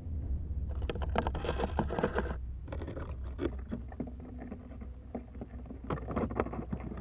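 Male wolf spider's courtship drumming on a dry leaf, picked up by a laser vibrometer and made audible: rapid scratchy clicking in two bursts, one starting about a second in and another about six seconds in, over a steady low hum.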